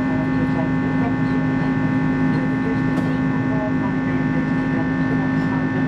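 Steady engine drone and airflow inside the cabin of an Airbus A330-200 in flight, its Pratt & Whitney PW4168A turbofans giving a constant hum with several held tones.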